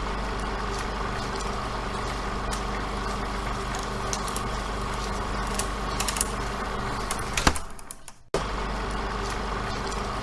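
A steady low hum under an even hiss, without speech or music. A sharp click comes about seven and a half seconds in, the sound drops out for under a second, then the same hum resumes.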